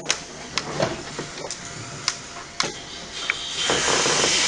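Small combat robots clattering in the arena: a string of sharp knocks and clicks, about six in three seconds, then a hiss that grows louder near the end.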